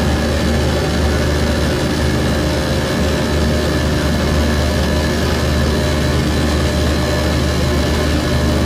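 Live harsh-noise electronics: a loud, steady wall of distorted noise with a heavy low rumble underneath.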